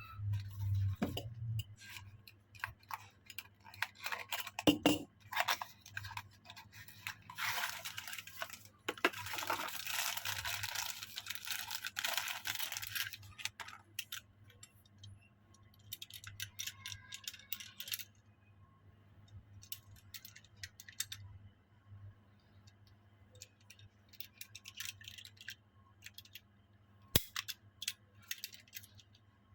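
Toy packaging being handled and opened by hand: scattered clicks and taps, a stretch of rustling and crinkling from about eight to thirteen seconds in, and a sharp knock near the end.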